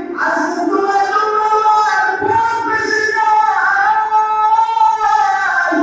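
A male qari chanting in long, drawn-out melodic phrases in the style of Quran recitation, his voice amplified through a microphone. The notes are held and ornamented with slow pitch turns, with a breath break just after the start and another near the end.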